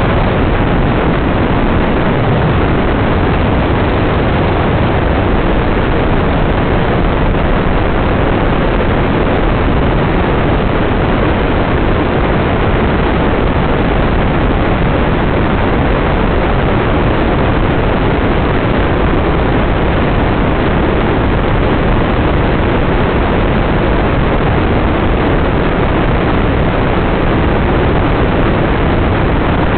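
Open dune buggy driving along a sand beach: a loud, steady rush of wind on the microphone mixed with the buggy's engine noise, with no separate events.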